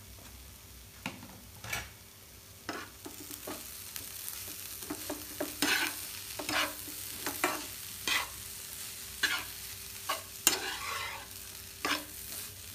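Spatula scraping and stirring grated carrot and beetroot in a frying pan, a scrape roughly every second, over a faint steady sizzle of frying.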